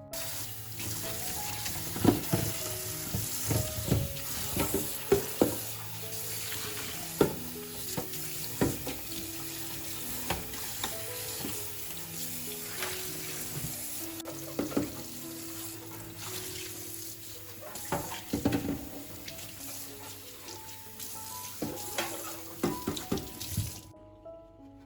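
Kitchen tap running into a sink, with scattered knocks and clatter of things being handled under the water. The water cuts off suddenly near the end.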